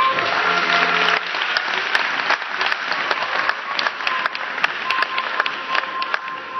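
Audience applauding, a dense patter of many hands clapping; the accompanying music fades out about a second in.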